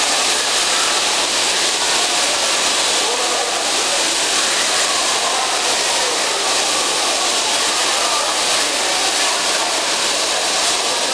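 Bumper car ride in operation: a steady, loud hiss-like din with no distinct knocks or bumps.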